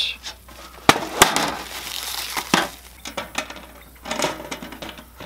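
A metal turtle-trap ramp being handled and fitted onto the trap's metal cage: two sharp clacks about a second in, then the ramp's plastic wrapping crinkling, followed by scattered light clicks and taps.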